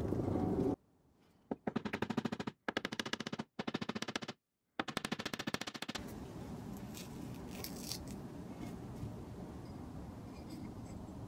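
Claw hammer, its steel face taped over, striking nails into a wooden board in a rapid run of sharp strikes, many per second, in several bursts broken by short silent gaps. After about six seconds only quiet handling noise and a few faint ticks remain.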